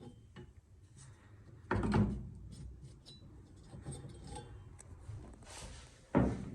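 Hands working on a washing machine during a belt repair: a heavy thump about two seconds in and another near the end, with light clicks and rubbing between.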